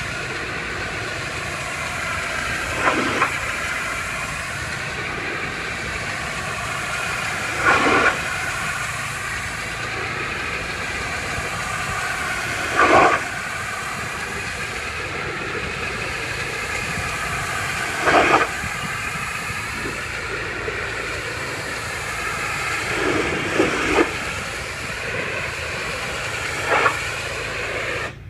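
Pressure washer spraying: a steady hiss of the water jet over the running machine, with louder surges about every five seconds.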